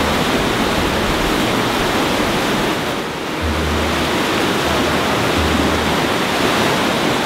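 Mountain creek cascading over rocks in white-water rapids: a steady, loud rush of water that dips briefly about three seconds in.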